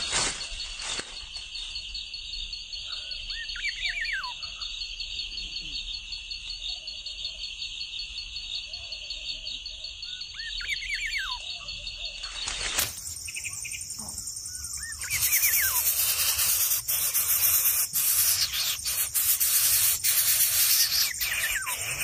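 A steady, fast-pulsing insect trill with two short bursts of falling bird chirps. About 13 s in the sound cuts, and from about 15 s a louder rustling hiss with scattered clicks takes over.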